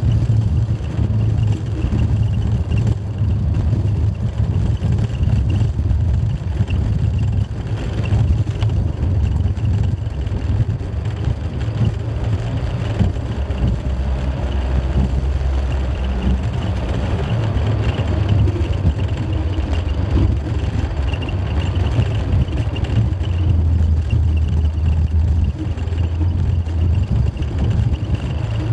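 A car driving on a road: steady engine and tyre noise, with the low engine hum shifting in pitch now and then as speed and gears change.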